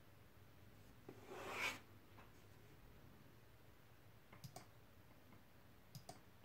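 Near-silent room with a short rising rustle about a second in, then two quick pairs of light computer mouse clicks, like double-clicks, near the middle and near the end.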